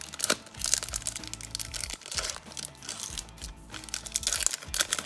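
Foil Pokémon booster-pack wrapper crinkling and crackling as it is torn open by hand, over background music.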